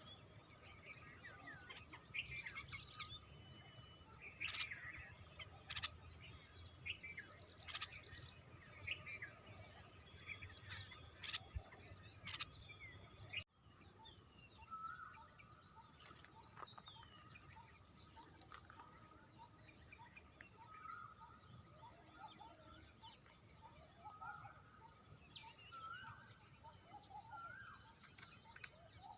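Several wild birds calling together: a mix of fast, high trills and chirps with shorter, lower whistled notes. The sound breaks off abruptly about halfway through, then resumes with a long high trill.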